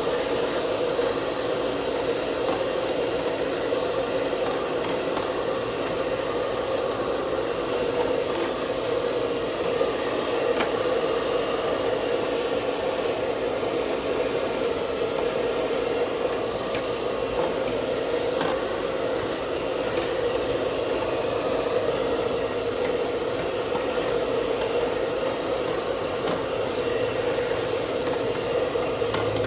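Electric air blower running steadily, blowing air to dry the parts quickly, and switched off at the end.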